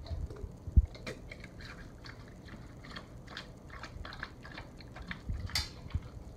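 A Weimaraner–Labrador mix dog licking and lapping raw egg from a stainless steel bowl: many small wet clicks of tongue and mouth, with a few low knocks and one sharper clink near the end.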